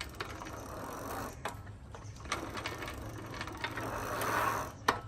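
Ratcheting mechanical clicks with a rasping stretch near the end, then one sharp click.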